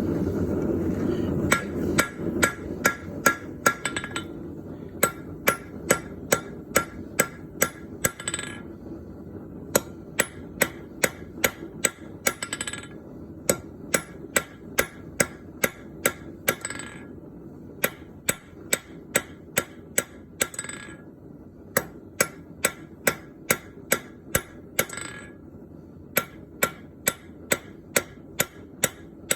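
Blacksmith's hand hammer striking hot bronze on an anvil, about two to three blows a second with a short ring after each. The blows come in runs, with brief pauses about every four seconds. A low steady furnace roar runs underneath and is loudest in the first couple of seconds.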